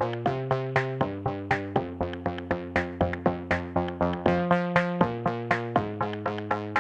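Electronic background music: a quick, even beat of plucked synthesizer notes, about four a second, over held bass notes that change every second or so.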